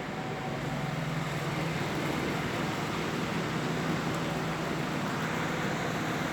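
Loren Sid Turbo 50 wall fan running, a steady rush of air from the blades over a low motor hum, growing slightly louder over the first couple of seconds.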